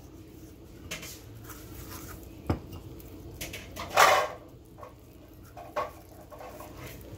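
Hands working dry seasoning into whole raw fish beside a bowl, with a few scattered taps, clinks and scrapes. The loudest is a short scrape about four seconds in.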